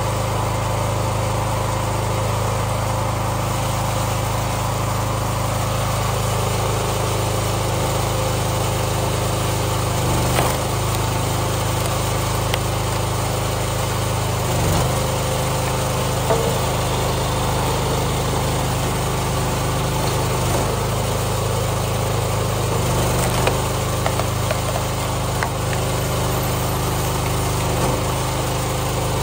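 Small gas engine of a hydraulic log splitter running steadily. A few short knocks and brief shifts in the engine note come as the ram is driven through firewood rounds and the wood splits.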